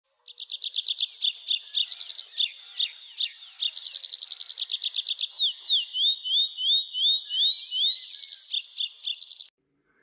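A songbird singing: high-pitched fast trills and rapid repeated notes, with a run of rising whistled notes in the middle, stopping abruptly near the end.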